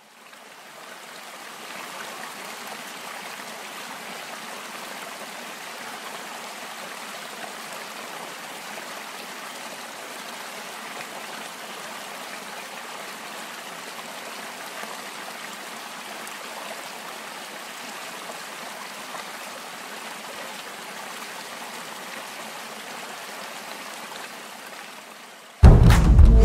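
Stream water rushing over rocks, a steady even rush that fades in at the start and fades out near the end. Loud music with deep low notes cuts in just before the end.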